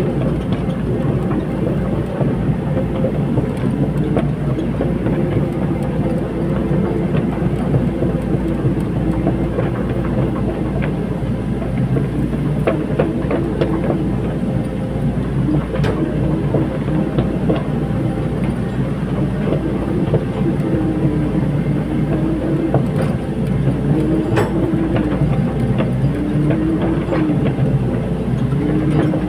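Caterpillar 320D hydraulic excavator working: its diesel engine runs steadily while the pitch dips and rises again and again as the hydraulics take and release load, with occasional sharp clanks.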